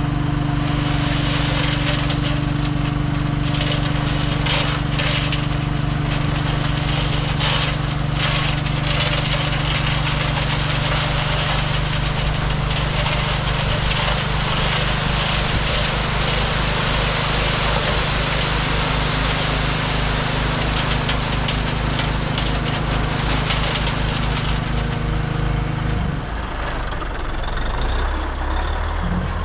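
A diesel heavy-equipment engine runs at steady raised revs under a loud hiss, then drops to a lower idle about 26 seconds in.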